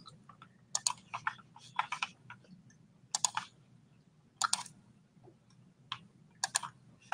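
Faint, scattered taps and clicks on a computer keyboard, a few at a time with pauses between.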